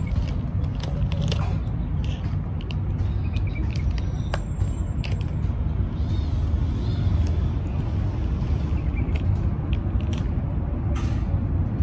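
Steady low outdoor rumble, with short high chirps or clicks scattered over it.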